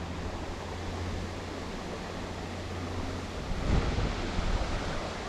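Steady rush of a rain-swollen small stream's flowing water, with wind buffeting the microphone, gusting stronger about three and a half seconds in.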